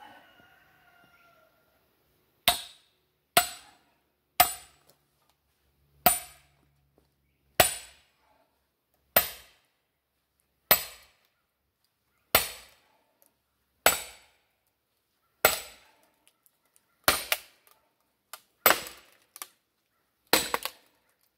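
Sledgehammer blows ringing on a steel splitting wedge driven into a sycamore round, about thirteen strikes roughly one every one and a half seconds, a couple of them doubled near the end. The wedge is hung up in the stringy sycamore, which is just beginning to crack.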